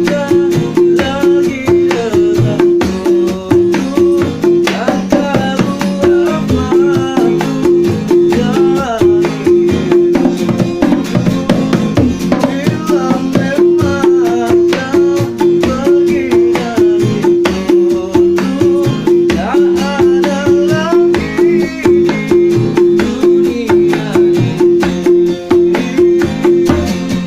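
Dangdut music played by street musicians: kendang hand drums keeping a steady beat under plucked strings and a wavering melody line, going on without a break.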